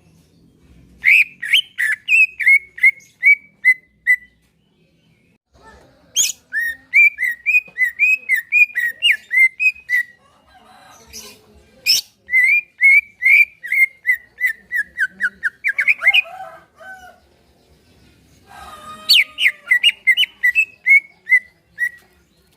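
Green leafbird (cucak ijo) singing: four phrases of rapid whistled notes, each opening with a sharp high note and run off in a quick series, with short pauses between them.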